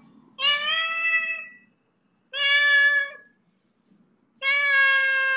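Domestic cat meowing: three long, drawn-out meows.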